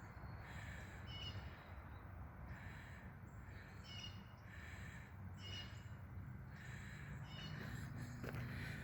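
A bird calling over and over, one short call about every second and a half, over a faint low background hum.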